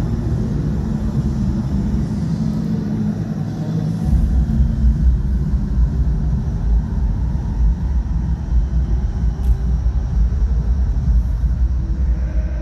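Amplified party music carrying from a distance, heard mostly as a deep bass rumble with little of the higher sound; the bass gets heavier and louder about four seconds in.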